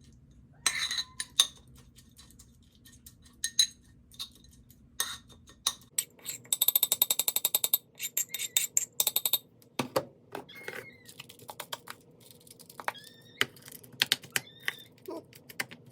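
Clicks and clinks of a cat's breakfast, dishes and dry food: scattered sharp clicks, a dense rapid rattle for about three seconds in the middle, then sparser clicks with a few short high squeaks near the end.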